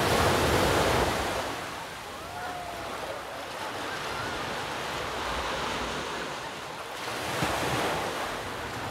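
Sea surf washing on the shore, with wind on the microphone. The surf swells loudest in the first second and again about seven seconds in.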